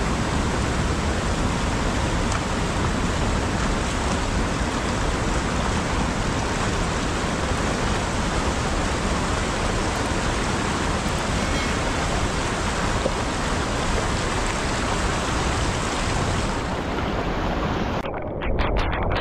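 Muddy floodwater rushing past in a fast torrent, a steady loud rush of water that thins out near the end.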